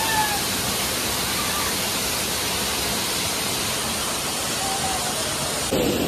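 Waterfall: a steady, even rush of water pouring onto rock, close by, with faint voices in the background. The sound changes abruptly near the end.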